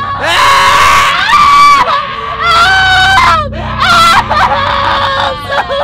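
Loud, high-pitched screaming in terror: several long screams one after another, breaking into shorter cries near the end.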